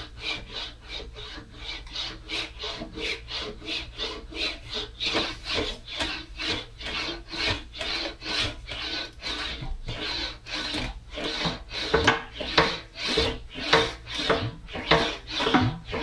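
English wheel rolling a sheet-metal cab corner panel back and forth between its wheels, a rhythmic rasping rub at about three strokes a second as a convex curve is wheeled into the panel. The strokes grow louder over the last few seconds.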